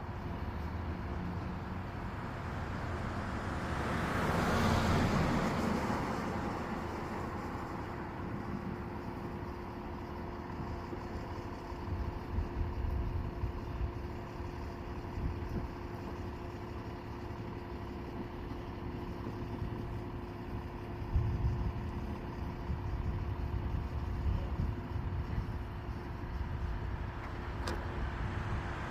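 Motor vehicles: a steady engine hum, with a vehicle passing about four to six seconds in and another approaching near the end.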